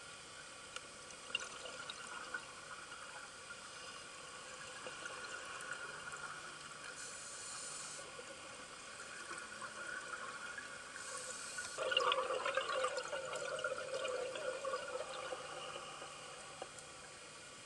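Scuba diver breathing through a regulator underwater: short hisses of inhaled air alternate with gurgling swells of exhaled bubbles. The loudest bubble burst comes about twelve seconds in.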